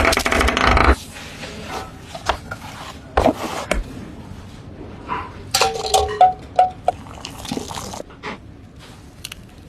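Food-preparation sounds: a loud, pitched buzz for about the first second, then scattered clinks, knocks and scrapes of utensils against dishes, with a few short ringing clinks about six seconds in.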